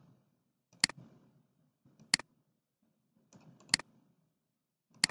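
Computer mouse clicking: four sharp single clicks spaced one to one and a half seconds apart, with faint low background noise between them.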